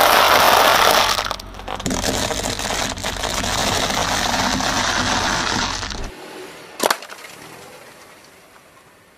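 Car tyre rolling over a pile of dry fusilli pasta, crushing it with a dense crackling crunch that stops abruptly about six seconds in. A single sharp click follows about a second later.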